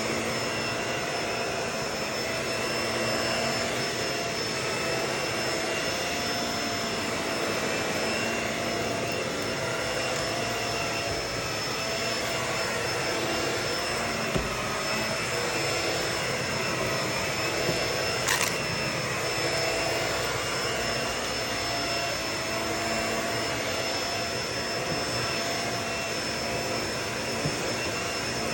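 Vacuum cleaner running steadily, a continuous rushing hum with a thin high whine over it. A single low thump comes about halfway through and a short click a few seconds later.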